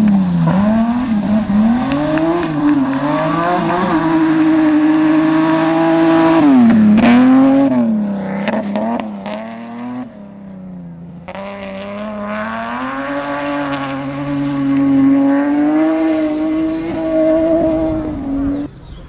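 Rally car engines at full throttle, revving high through quick gear changes, with the pitch dropping and climbing again. A burst of sharp pops and cracks comes midway as the throttle lifts. A second run of hard acceleration starts abruptly and is held at high revs before cutting off just before the end.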